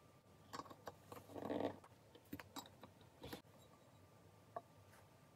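Light plastic clicks and knocks of wick-centering holders being fitted onto the rims of candle jars, with a brief rustle about a second and a half in.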